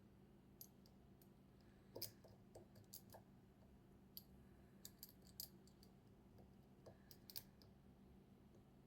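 Faint, irregular clicks of a lock pick working the pins of a KESO 8000 Omega² high-security cylinder lock under tension, over a low steady hum.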